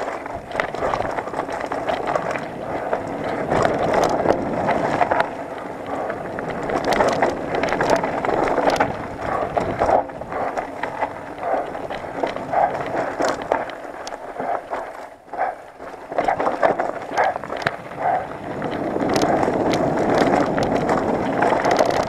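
Mountain bike descending a dirt and stony trail: tyres running over dirt and stones, with rattling and clicking from the bike and wind noise on the microphone. It eases off briefly about two-thirds of the way through.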